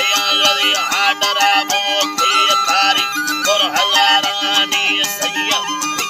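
Balochi folk music: a long wooden end-blown flute (nar) plays with a man singing. A plucked string instrument repeats a low note in a quick, even rhythm underneath.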